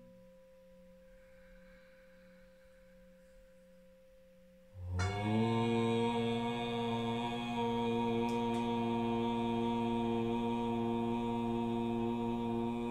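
A man chanting one long, steady "Om" on a single low held pitch, starting sharply about five seconds in; it is one of the closing Oms of a yoga session. Before it there is only a faint lingering ring, from the singing bowl he has just used.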